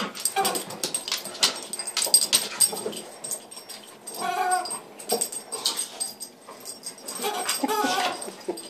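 Dog chewing and worrying a toy chicken: a steady patter of small clicks and rustles, with short squeaky cries about four seconds in and again near the end.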